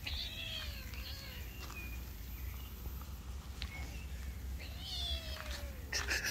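A cat meows twice: a short call at the start and a longer one about five seconds in that slides down in pitch. A brief noisy rustle follows near the end.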